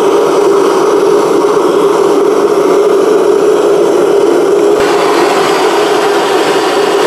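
Gas torch burning steadily, a continuous rushing noise of the flame heating the crucible to melt the flux glaze. About two-thirds of the way through, the upper part of the sound brightens abruptly.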